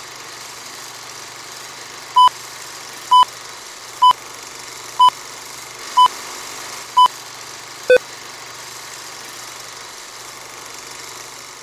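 Film countdown leader sound: a steady whirring hiss with a low hum, like a film projector running, and six short, high beeps about a second apart, followed by a sharper single pop.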